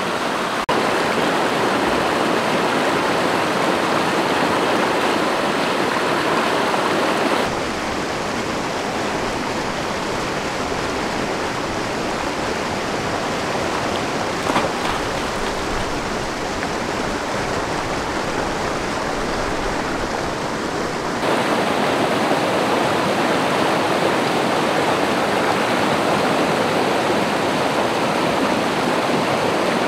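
River rapids: fast water rushing over rocks as a steady, dense noise. From about seven seconds in it turns softer and duller for some fourteen seconds, with one brief louder sound near the middle, then comes back up full.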